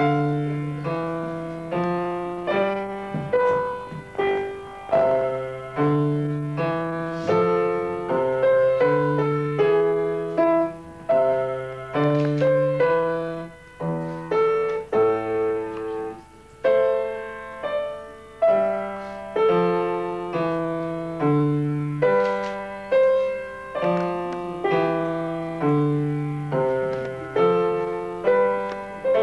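Piano playing a simple student recital piece: a melody of single notes over low bass notes, in a steady even pulse, each note struck and then dying away.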